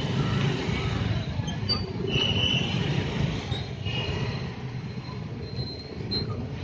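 Slow, congested street traffic: scooters and motorcycles running at low speed through a crowded lane, a steady engine rumble with a few brief high squeals, the loudest about two seconds in.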